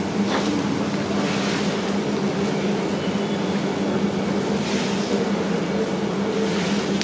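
A steady machine drone with a constant low hum, with a few brief hissing swells over it.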